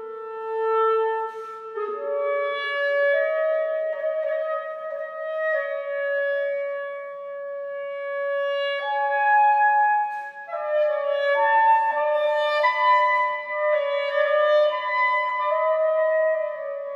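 Solo clarinet playing long held notes that move in small steps between nearby pitches, with a briefly higher note about nine seconds in.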